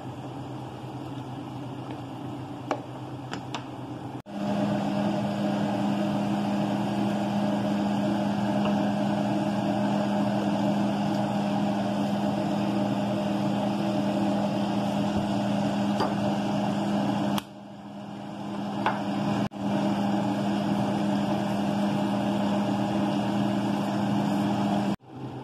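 Steady electric motor hum in a kitchen, with a low drone and its overtones. It steps up louder about four seconds in and drops out briefly twice later on.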